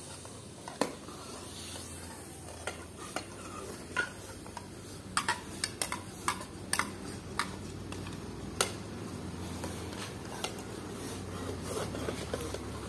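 A metal ladle stirring and scraping through meat frying in a metal pot, with a dozen or so sharp clinks of the ladle against the pot, most of them bunched together a few seconds in, over a steady low sizzle.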